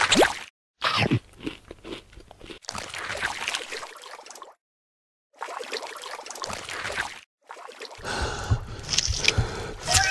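A string of added stop-motion sound effects, wet gurgling and squishing noises, broken up by abrupt cuts to dead silence. A short falling whistle comes a little under a second in.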